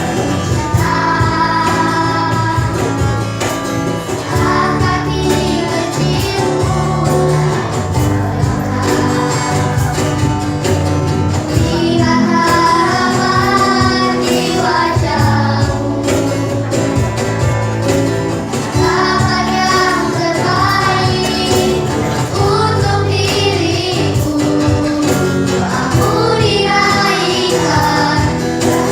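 A small group of children singing a song together over instrumental backing with a steady beat.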